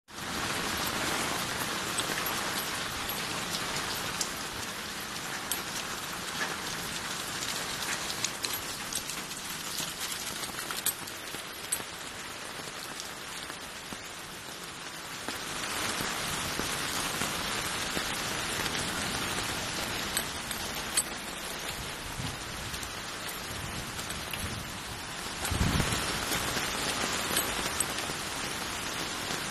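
Heavy rain pouring onto a flooded street: a dense hiss of drops with scattered sharp ticks. The rain swells heavier about halfway through and again near the end, where a short low rumble comes in.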